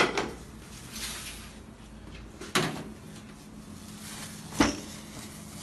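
Kitchen utensils clacking against crockery and cookware: three sharp knocks, at the start, about two and a half seconds in and near the end, from a spoon and pan handled over a plate of boiled pithas.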